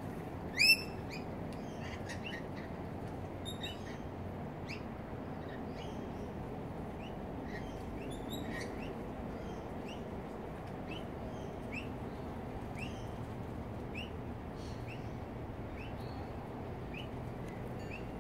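Birds calling: one loud call just under a second in, then a long run of short rising chirps about once a second, over a steady low background hum.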